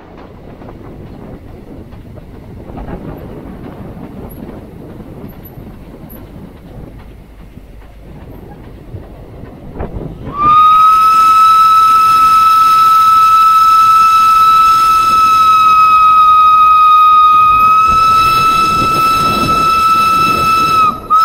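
Steam locomotive running along the track with a rumbling rail clatter, heard from close beside the engine. About ten seconds in, its whistle sounds one long, loud, steady high note for about ten seconds, then gives a brief extra toot at the very end.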